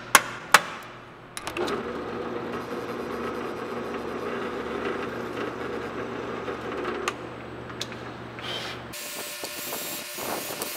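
Two sharp clicks from a center punch marking the hole positions in a steel plate, then a drill press running and drilling through the steel for about five seconds. About nine seconds in, a cordless drill spins up with a countersink bit to chamfer the drilled holes.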